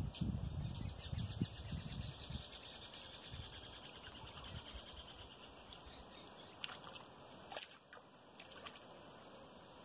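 Faint outdoor ambience. Low rumbling on the microphone fades out over the first couple of seconds, a faint high buzzing trill runs through the first few seconds, and a few soft clicks come near the end.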